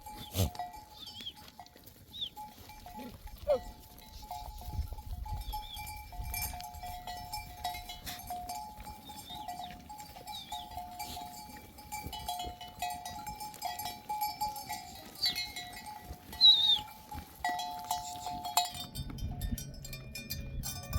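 A flock of sheep with bells ringing on and off, and a bleat now and then. The bells stop about nineteen seconds in.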